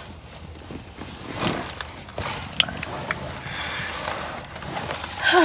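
Soft rustling and handling noise from a person shifting in a car seat and moving a mesh jersey, with a few small clicks.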